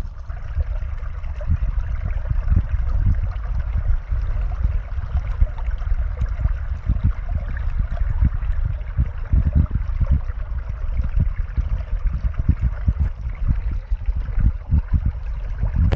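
Creek water running, a steady rushing hiss over a heavy, uneven low rumble.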